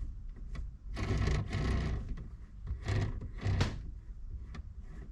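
Hands working on the newly installed short throw shifter in the car's console: irregular rubbing and scraping of parts with a few light clicks and knocks, loudest about a second in and again around three seconds in.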